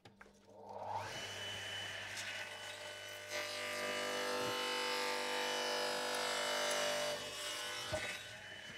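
Radial arm saw's electric motor and blade running with a steady hum. It gets louder and fuller for about four seconds in the middle, then settles back, with a single knock near the end.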